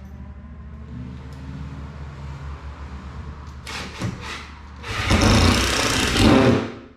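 Power drill driving a long screw up through a 2x6 board into a ceiling stud, loudest for a burst of nearly two seconds near the end after a quieter steady hum.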